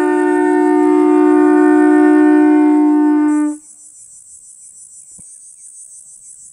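Two conch-shell trumpets blown together in one long steady note, a second tone joining about a second in; both stop abruptly about three and a half seconds in. A high, pulsing insect buzz is left behind.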